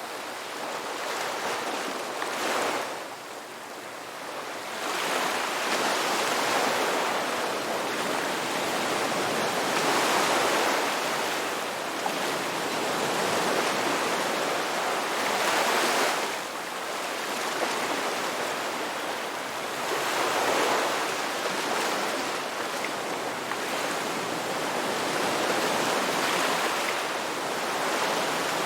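Ocean waves breaking and washing on the shore, a steady rush of surf that swells and eases with each wave every few seconds.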